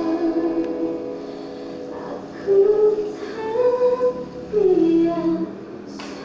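Background music: a song with a sung melody of held notes that slide between pitches.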